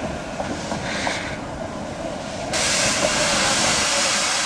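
Narrow-gauge Beyer Peacock 2-4-0 tank steam locomotive 'Maitland' drawing slowly alongside the platform with a jumble of wheel and motion noise. About halfway through, a loud steady hiss of escaping steam starts suddenly and carries on.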